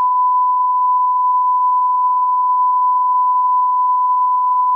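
Censor bleep: a single loud, steady pure tone held unbroken over the speech.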